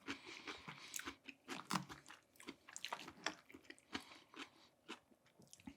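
Close-miked chewing of a mouthful of shrimp, with irregular small crunches and wet mouth clicks, thinning out near the end.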